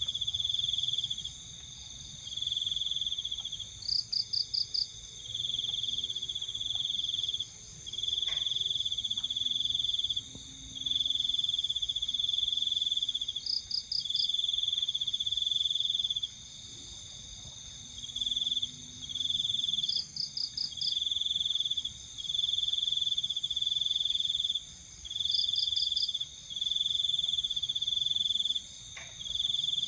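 Night insects calling in chorus, crickets among them: a loud high trill in bouts of one to two seconds with short breaks, over a steady higher drone, and a short rapid pulsed call from another insect about every six seconds.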